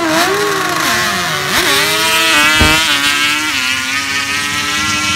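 Two drag-racing quads launch off the line together, one of them a Yamaha Banshee with its twin-cylinder two-stroke engine. Both engines rev hard and climb in pitch, stepping down with each gear shift as they pull away down the strip.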